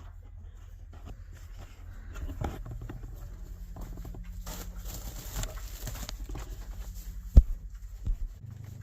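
Cattle walking in, their hooves shuffling and knocking in a quick irregular patter, with one sharp loud knock about seven seconds in.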